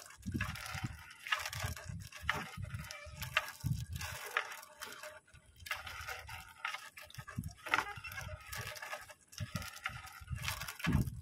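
Fishing net being hauled by hand over a boat's side: irregular wet rustling and scraping of the mesh, with water dripping and splashing, in uneven pulls about every second.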